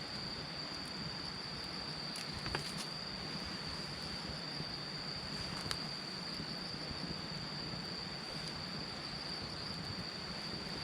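Crickets trilling in one steady high-pitched note, with a few faint pops from the campfire.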